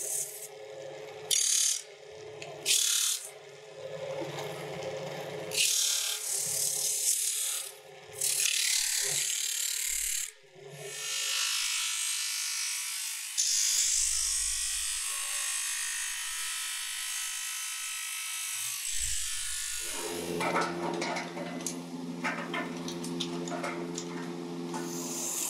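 Sanding drum grinding stacks of layered paper motorcycle brake-shoe blanks, with a series of harsh grinding strokes. For the last few seconds a machine motor runs with a steady hum.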